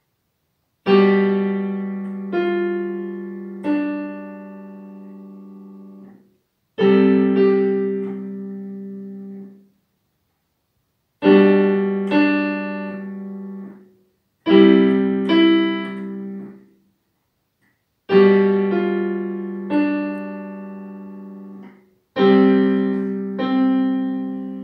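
Digital piano playing a slow, simple piece in six short phrases. Each phrase opens with a chord over a held low note, followed by two or three more notes that die away, with a brief silence before the next.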